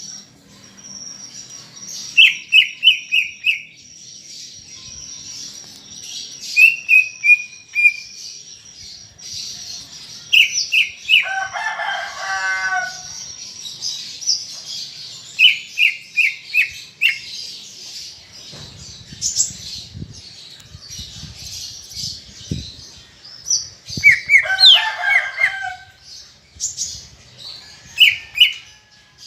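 Greater green leafbird (cucak ijo) singing: loud runs of three to five quick, sharp chirps every few seconds, with a couple of longer, fuller phrases, over a steady high thin whistle. A few faint low knocks come about two-thirds of the way through.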